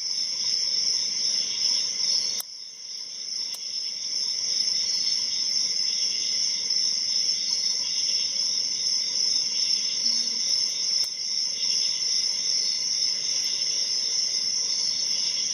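A steady chorus of crickets chirping in the background, with a few faint clicks from the pick working in the padlock.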